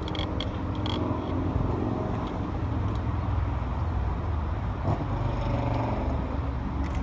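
A motor engine running with a steady low rumble, with a few light clicks in the first second.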